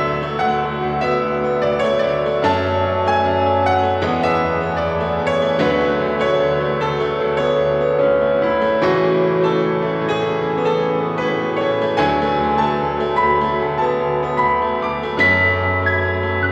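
Instrumental piano music: a calm piece of sustained chords, with the low note changing every two to three seconds.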